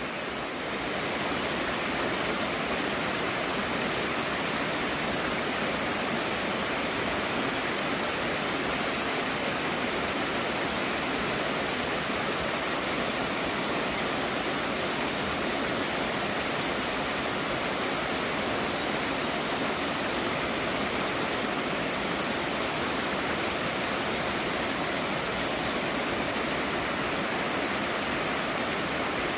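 Waterfall: a steady rush of falling water, rising over the first second or two and then constant.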